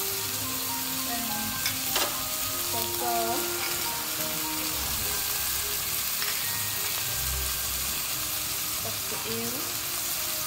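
Sliced beef sizzling steadily in a hot wok while a metal spatula stirs it, with a couple of sharp clicks about two seconds in.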